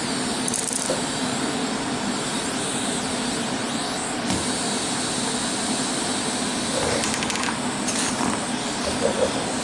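Steady fan-like machine noise, an even hiss over a low hum, with a few light metallic clinks near the end.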